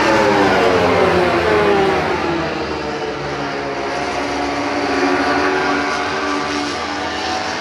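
MotoGP racing motorcycles passing at high revs, their engine notes falling in pitch as they go by. Loudest in the first two seconds, with a second swell about five seconds in as a pack of bikes comes through.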